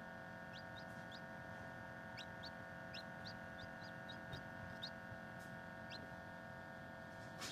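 Newly hatched cuckoo Silkie chick peeping: short, high, upward-sliding peeps at about two a second, irregular and thinning toward the end, over the steady hum of the incubator.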